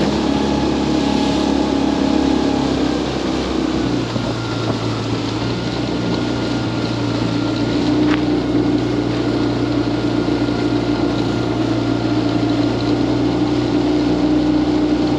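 Outboard motor of a small aluminium boat running steadily while underway, over a rush of water along the hull. The engine note changes about four seconds in.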